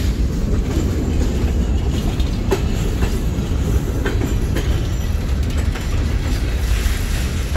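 Freight train of boxcars rolling past close by: a loud, steady rumble of steel wheels on the rails, with a few sharp clicks.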